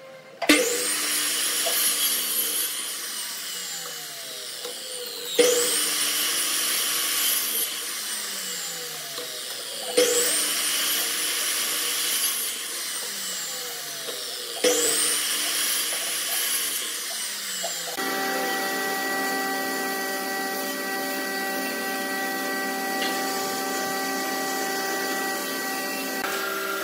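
An electric compound miter saw makes four short cuts through curved pine pieces, about every five seconds. Each one starts with a sharp burst as the motor spins up and the blade bites, then falls away as the blade winds down. After that comes steady background music of sustained notes.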